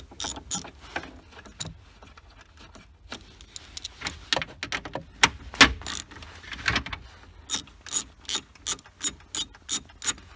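Socket ratchet clicking as 10 mm bolts are backed out, in runs of quick, even clicks about three a second. There is a sparse stretch early on, some irregular clicks in the middle, and a steady run through the last few seconds.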